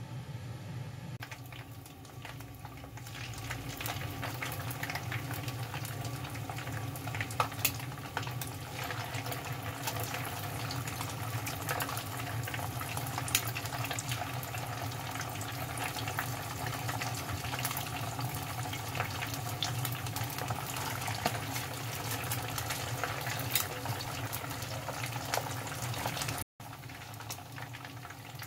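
Hiryūzu (ganmodoki) tofu balls deep-frying in hot oil: a steady sizzle full of sharp crackles and pops, growing louder about three seconds in. A steady low hum runs underneath.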